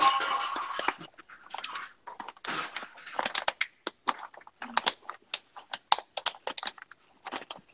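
Paper flour bag rustling and crackling as a measuring cup is dug into the flour, a run of short, irregular crackles and scrapes.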